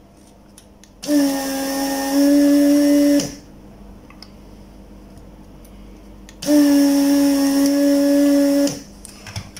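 Vacuum pump of an electric desoldering gun running twice, each run about two seconds of steady hum that starts and stops abruptly. It is sucking the solder off the joints of a swollen filter capacitor to free it from the charger's circuit board.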